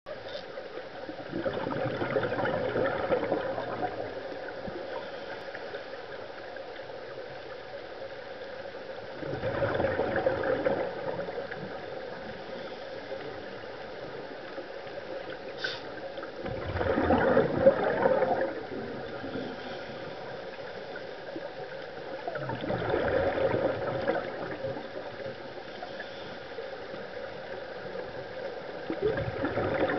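Scuba diver breathing underwater through a regulator: a bubbly rush of exhaled air every six or seven seconds, each lasting about two seconds, over a steady background hum.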